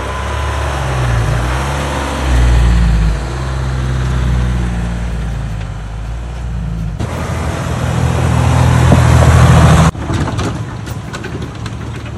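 Jeep Wrangler's 3.0-litre EcoDiesel V6 turbodiesel engine running as the Jeep drives a dirt trail, heard in a few short clips that cut off abruptly twice. The engine note swells and is loudest just before the second cut, near ten seconds in.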